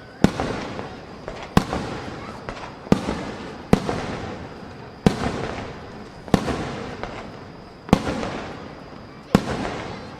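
Aerial firework shells bursting overhead: eight sharp booms about a second or a second and a half apart, each one trailing off in a fading rumble.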